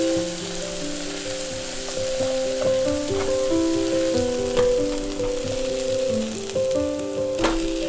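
Food sizzling in a frying pan with a steady hiss and a few light knocks, over background music that plays a simple melody.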